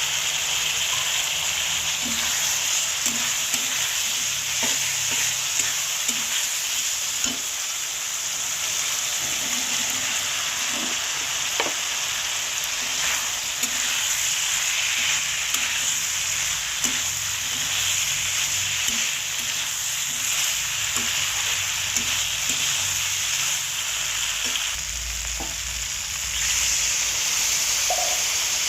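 Vegetables with soya chunks and potatoes sizzling steadily in hot oil in a pan. They are being stirred with a spatula, which knocks against the pan every second or so.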